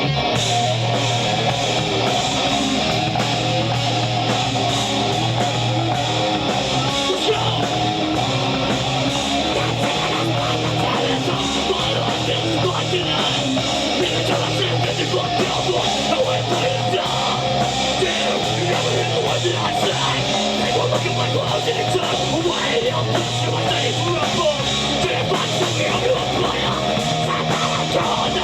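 Loud guitar-driven heavy rock music with a low bass riff changing notes every second or so, and no vocals.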